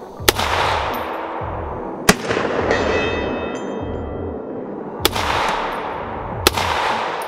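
Four single shots from a .308 Springfield M1A SOCOM 16 rifle in an EBR chassis. They are fired one at a time, one and a half to three seconds apart, and each crack is followed by a long echo. A faint metallic ringing follows the second shot.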